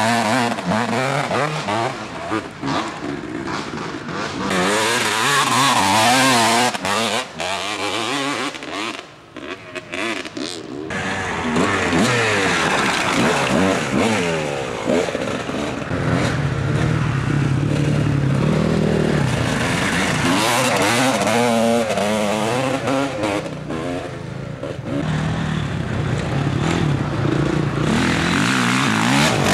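Off-road dirt bike engines revving hard and easing off, the pitch rising and falling again and again as the bikes accelerate and shift on the dirt track. There is a short lull about nine seconds in, then the revving picks up again.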